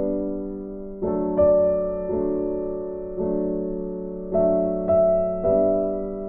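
Slow, soft background piano music: a new chord is struck about every second and each one fades away.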